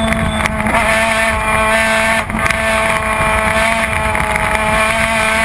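Race car engine running hard at high revs, heard from an onboard camera, with wind on the microphone. The engine note holds steady except for a brief break and dip about two seconds in, like a gear change.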